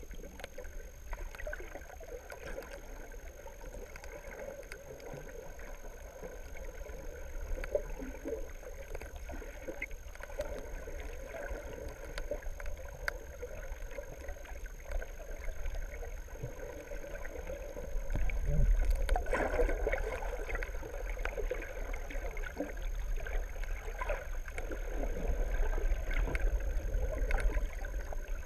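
Muffled underwater sound picked up by a camera in its waterproof housing: a steady low rumble of moving water with a thin, steady high-pitched tone running through it. It grows louder about two-thirds of the way in.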